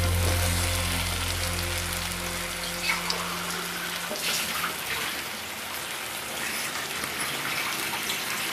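Egg bhuna, boiled eggs in onion masala, sizzling steadily in a frying pan, with a wooden spoon stirring it at the start. A low steady hum fades out over the first few seconds.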